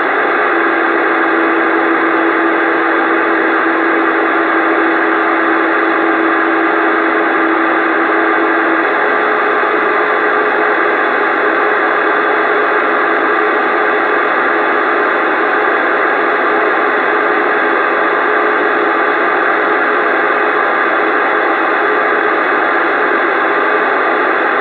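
CB radio static: a steady, loud hiss from the radio's speaker, with a steady low whistle from about half a second in to about nine seconds in and a fainter, slightly higher whistle running under it.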